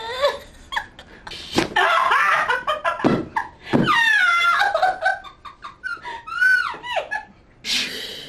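Young women laughing and squealing in high, gliding voices, with a few sharp clicks among the laughs.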